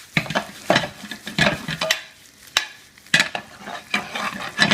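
Chopped onion frying in butter and oil in a pan, sizzling as it turns golden brown, with a utensil stirring and scraping the pan in sharp strokes about every half second.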